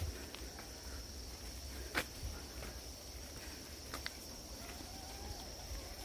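Footsteps on a dirt forest trail, a few scattered crunches about two seconds apart, over a steady high-pitched insect drone and a low rumble of wind.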